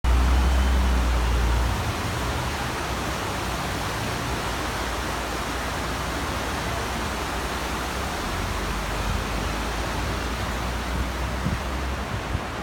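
Steady wash of city road traffic noise, with a stronger low rumble in the first couple of seconds.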